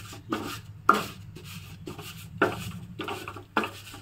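Round wooden khakhra presser pressed and rubbed over a khakhra on a flat griddle during roasting, giving a rough scraping stroke a little more often than once a second, a few with a sharper knock.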